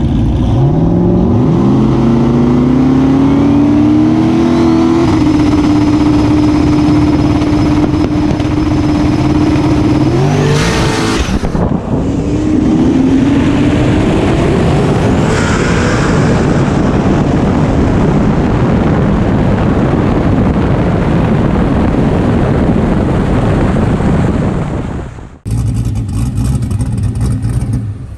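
Turbocharged 5.3 LS V8 drag car running at full throttle down the track. The engine pitch climbs and then holds, dips briefly about eleven seconds in, and climbs again. The engine sound cuts off abruptly near the end.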